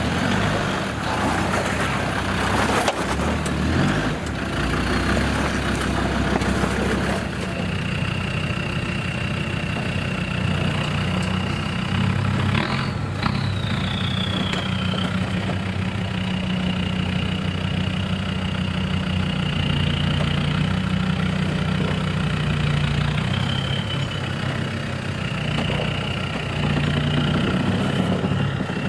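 Land Rover TD5 five-cylinder turbo-diesel engines working off-road at crawling pace. First a Discovery 2 climbs a rock ledge with a rough, noisy engine and tyre sound. About seven seconds in it gives way to a Defender 110 TD5 running steadily under light throttle, with a thin high whine over the low drone.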